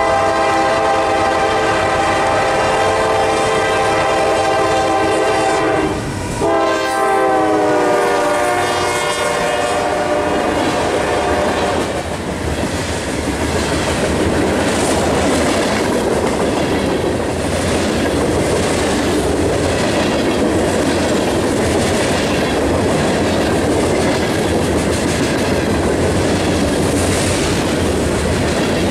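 Norfolk Southern GE Dash 9-44CW locomotive's K5LA air horn sounding: a long blast, a short break about six seconds in, then another blast whose pitch drops as the locomotive passes. From about twelve seconds on, the train's covered hopper cars rumble past close by, with a steady clickety-clack of wheels over the rail joints.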